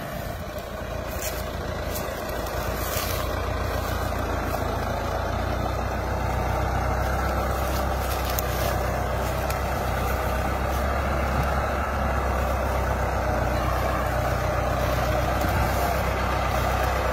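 Massey Ferguson 385 tractor's four-cylinder diesel engine running hard under heavy load, pulling a heavily loaded trolley. The engine note builds over the first few seconds, then holds steady.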